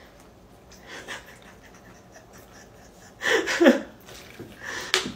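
A woman's breathing, with a short voiced sound falling in pitch about three seconds in, then a few light clicks near the end.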